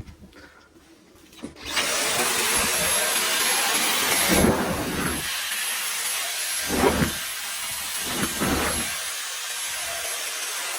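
Dyson cordless stick vacuum switching on and running, a dense rush of air with a thin high whine. It eases slightly a few seconds in, with a few short swells in the sound as it is worked over the mess.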